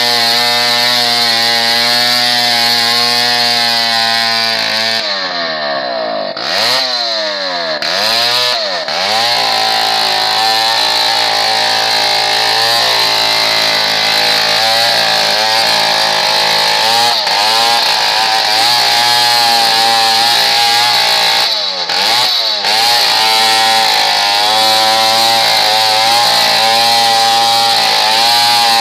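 Two-stroke chainsaw running at high revs, cutting into the trunk of a dead coconut tree. The engine speed drops and picks back up several times about five to nine seconds in, and dips briefly again a little past twenty seconds in.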